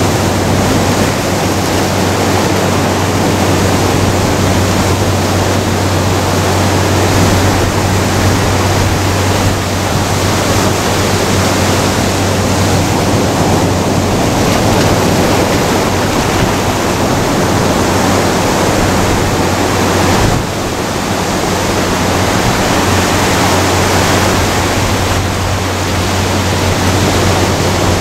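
Ocean surf breaking and washing up a sandy beach around rocks, a loud steady rush of white water.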